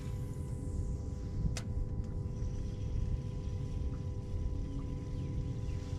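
Bass boat's electric trolling motor running: a steady hum over a low rumble, with one sharp click about a second and a half in.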